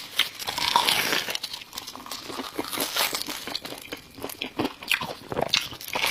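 Close-up crunching and chewing as someone bites into crisp fried cheese balls, a dense run of irregular crackles.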